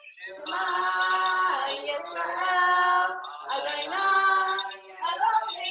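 A woman singing a slow melody in long held notes that glide between pitches, in about three phrases.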